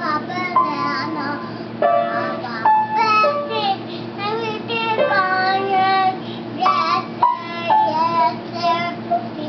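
Young child singing in a high voice while pressing keys on an upright piano, with piano notes struck now and then under the singing.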